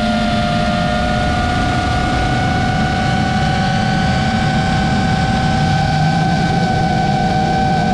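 FPV quadcopter's electric motors and propellers whining steadily in flight, the pitch shifting only slightly, over a low rushing noise.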